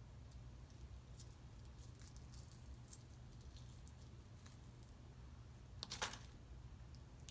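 Hardboiled eggshell being peeled by hand: faint scattered ticks and crackles as bits of shell break off, with a louder crackle about six seconds in, over a low steady hum.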